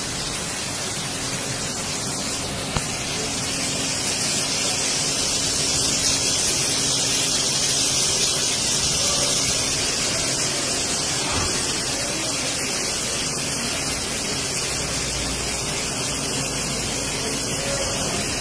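Heavy rain pouring down: a steady, loud hiss that swells a little through the middle, with one short click about three seconds in.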